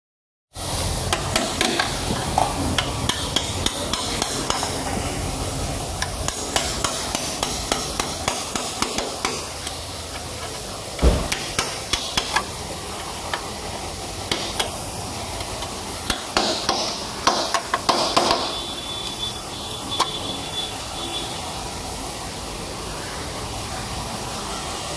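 Irregular metal knocks, taps and clinks of hand body-repair work over a steady workshop background, with one sharp loud knock about eleven seconds in and a quick run of knocks later on.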